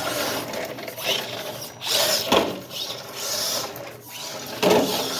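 Electric RC car driving on cement: the motor and geared drivetrain whir and rattle, swelling and easing with the throttle.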